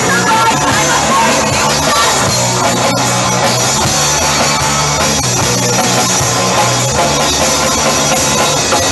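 Live rock band playing loud, with a drum kit and bass under the guitar.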